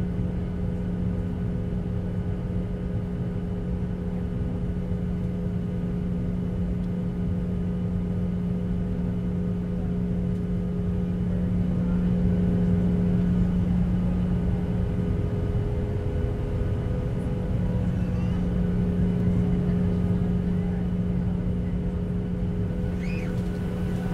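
Boeing 737's turbofan engines at taxi thrust heard inside the passenger cabin: a steady low rumble with a constant hum, getting a little louder around the middle.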